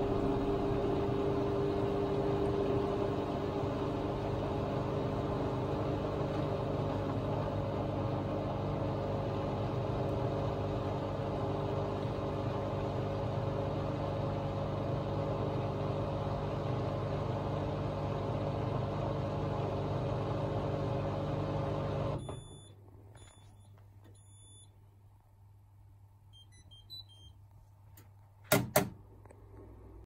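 Hoover Axi Smooth 1600 washing machine on its spin, drum and motor running steadily at speed with a whine and rush. About 22 seconds in, the sound drops away suddenly. A low hum remains, with a few faint short beeps, then two loud sharp clicks near the end.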